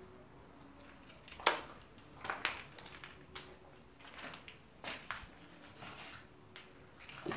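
Irregular footsteps crunching and scraping over debris, a scatter of sharp cracks and knocks with the loudest about a second and a half in.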